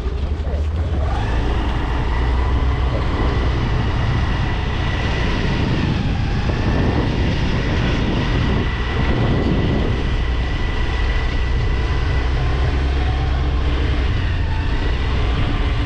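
Honda Grazia 125 scooter riding along the road: heavy wind rumble on the microphone over a steady engine whine that rises about a second in, as the scooter picks up speed, and then holds level.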